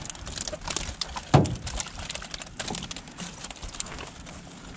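Quick knocks and rattles of a hoop net and flopping channel catfish against the hull of an aluminium boat, with one loud thump about a second and a half in.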